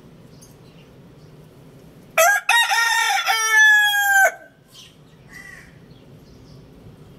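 A rooster crows once, loud, for about two seconds. It opens with a short note, breaks into a few quick notes and ends on a long drawn-out note that falls slightly in pitch before cutting off.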